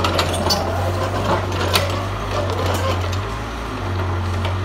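Mitsubishi excavator's diesel engine running steadily, with a few sharp metallic clanks and knocks over it, the loudest just under two seconds in.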